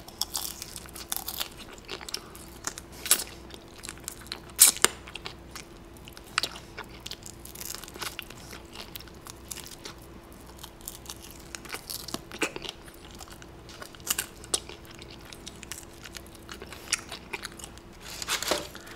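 A person biting and chewing crispy fried chicken held in the hands, with irregular crunches and mouth sounds. Near the end a hand rummages in the paper-lined chicken box with a louder rustle.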